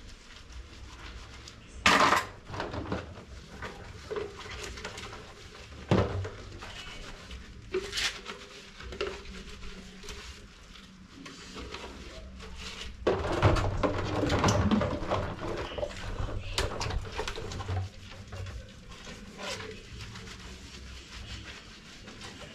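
Dishes, pots and cutlery being washed by hand: scattered knocks and clinks of utensils against each other, with a busier stretch of clattering and scrubbing past the middle.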